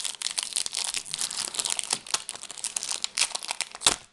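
Foil booster-pack wrapper of a Pokémon trading card pack being torn open and crinkled by hand: a dense run of irregular crackles, with one sharper crackle near the end.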